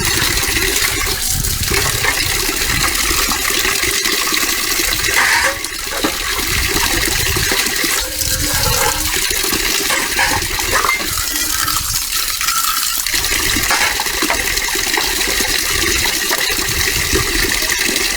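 Water running and splashing steadily, with a few light clinks.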